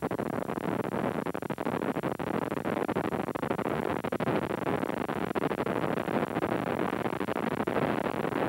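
Helicopter in flight: a steady, dense engine and rotor noise with no let-up.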